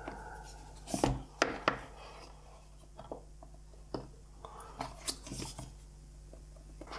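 A cardboard smartphone box being handled and turned over in the hands: a few sharp taps and knocks about a second in, another knock near four seconds, and light rubbing of cardboard around five seconds.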